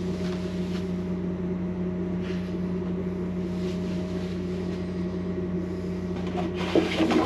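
A steady electric motor hum with a constant low tone. A few light knocks and rustles come near the end.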